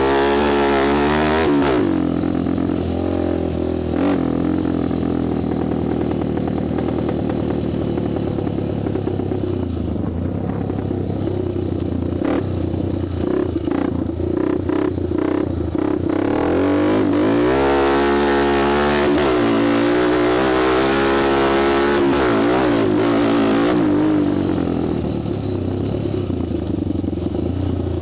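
Honda TRX250X quad's single-cylinder four-stroke engine and exhaust under riding load, the engine pitch rising and falling as it is revved through the throttle and gears. A run of sharp knocks and rattles comes midway, followed by several quick rev sweeps up and down.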